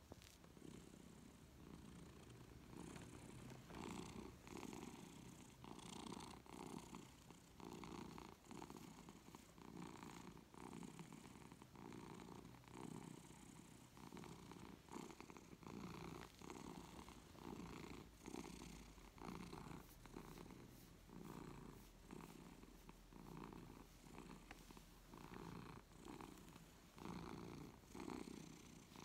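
Long-haired tabby cat purring contentedly while its head is stroked. The purr is faint and steady, swelling and easing about once a second with its breathing.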